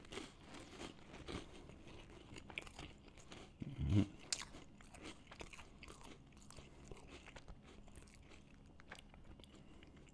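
A person chewing a cracker sandwich filled with chicken salad: crisp crunching of two stacked crackers, with one louder low thump about four seconds in.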